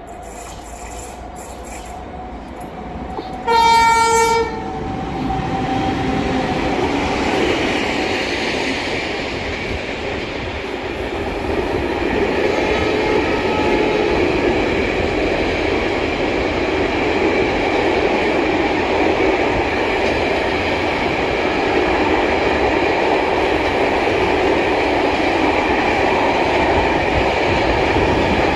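An electric locomotive's horn sounds one short blast about three and a half seconds in, the loudest moment. After that a long intermodal container freight train rolls past, its wagons making a steady running noise that grows louder from about twelve seconds in as they pass close by.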